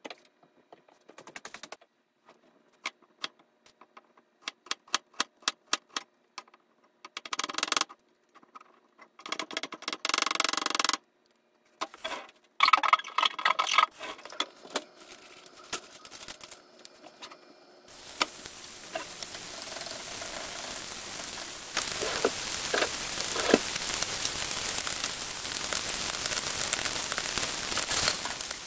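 Kitchen knife chopping quickly on a plastic cutting board, a run of rapid even taps, then a few louder rustling handling noises. From a little past halfway, bacon and garlic sizzle in oil in a frying pan with a steady hiss that grows louder as the food heats, as the bacon is tossed.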